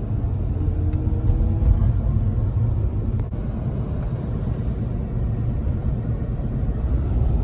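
Road and engine noise heard inside a moving car's cabin: a steady low rumble.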